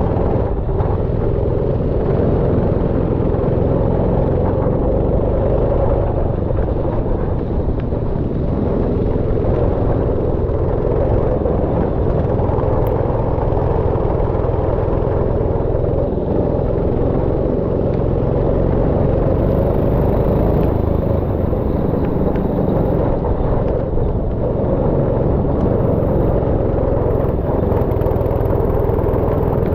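Go-kart engine running steadily: a continuous rumble with no clear revs or pauses, mixed with road and wind noise.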